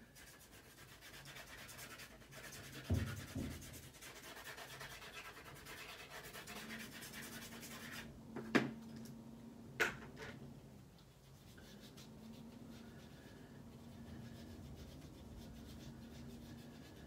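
Stampin' Up! soft pastel stick rubbing across black cardstock, a faint, steady scratchy sound, with a few light knocks along the way.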